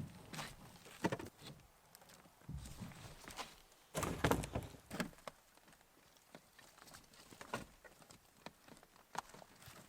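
Irregular knocks and clatters of debris being handled during camper demolition, with a loud cluster of clattering about four seconds in.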